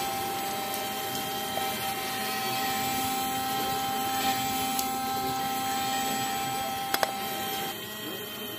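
Small DC motor of a homemade toy-tractor water pump running with a steady electric whine. Two sharp clicks come about seven seconds in, and the whine stops soon after.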